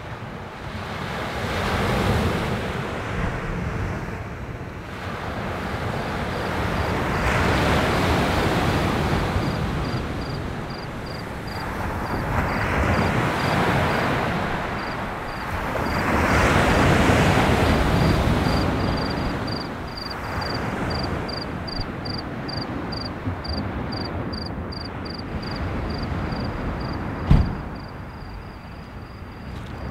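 Sea waves washing onto the shore, the surf swelling and fading every four to six seconds. A high, fast-pulsing chirp comes in about a third of the way through, and there is a single sharp knock near the end.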